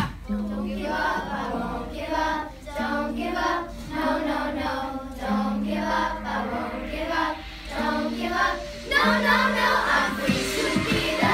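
A class of children singing together as a group, holding some long notes, with the singing growing louder and fuller about nine seconds in.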